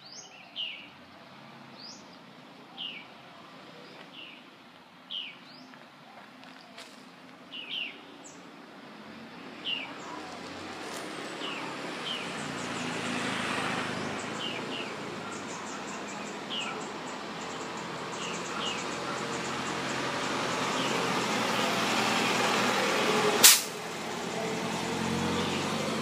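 A bird calling in short, falling chirps every second or two, over a rushing background noise that builds from about halfway in. A single sharp click near the end is the loudest sound.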